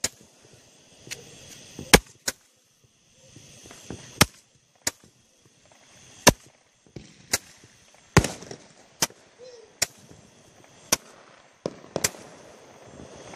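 Consumer fireworks going off: a string of about fifteen sharp bangs at irregular intervals, roughly one a second.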